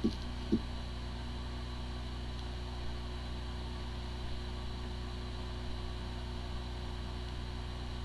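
Hard drive spinning with a steady hum and whine, and two short knocks in the first second. The disks spin normally while the drive is not accessible, a symptom that may point to disk firmware corruption.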